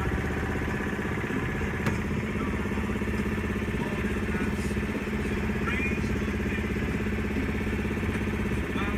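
Sailboat's auxiliary engine running steadily at low speed, an even rapid chugging.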